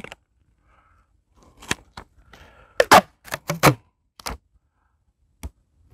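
Scissors snipping pieces off a roll of clear fabric repair tape: a string of short, sharp snips and clicks at uneven intervals, starting after about a second and a half of quiet.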